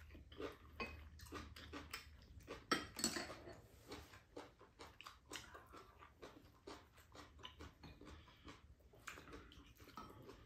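Faint clatter of chopsticks and spoons clicking against ceramic bowls and a frying pan, mixed with chewing; the loudest click comes about three seconds in.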